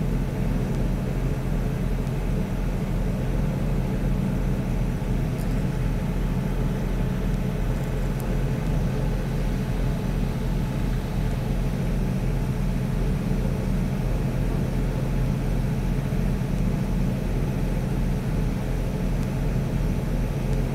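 Boat engine running at a steady low drone, with no change in pitch or speed.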